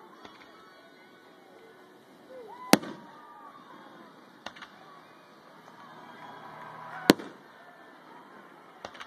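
Aerial firework shells bursting overhead: a loud bang about three seconds in and another about seven seconds in, with fainter double pops between them and near the end.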